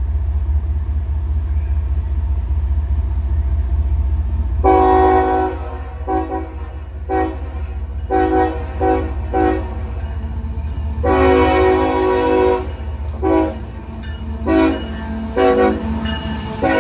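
Freight diesel locomotive's multi-chime air horn played as a horn show: a long blast about five seconds in, a quick string of short toots, a second long blast near eleven seconds, then more short toots. A steady low rumble runs underneath and fades about halfway through.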